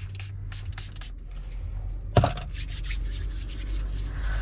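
Hands rubbing together, spreading freshly sprayed hand sanitizer, in a run of short dry strokes. There is one sharp knock about two seconds in, over a steady low hum.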